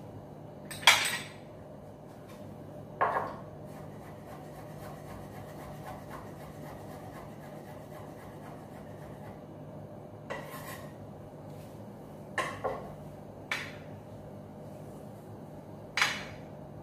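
Kitchen knife knocking on a wooden cutting board: about seven single sharp knocks spaced seconds apart, the loudest about a second in, with a steady low hum underneath.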